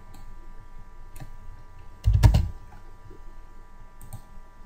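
Computer keyboard keystrokes and mouse clicks: a few scattered clicks, with one louder thump about two seconds in.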